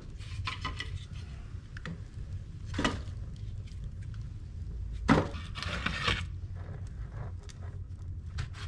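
Split firewood knocking against the other logs and the firebox as it is loaded by hand into a burning soapstone wood stove. There are several sharp wooden knocks, the loudest about three seconds and five seconds in, over a low steady rumble.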